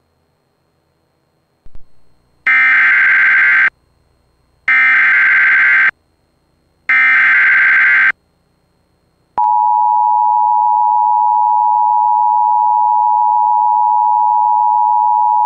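Emergency Alert System header and attention signal: three bursts of shrill digital data tones (the SAME header), each about a second long, then from about nine seconds in a steady, loud electronic attention tone that holds without a break.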